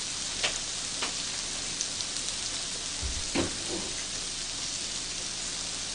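Thin-sliced pork and shrimp rolls sizzling steadily on a tabletop grill plate as their fat runs, with a few short clicks and pops.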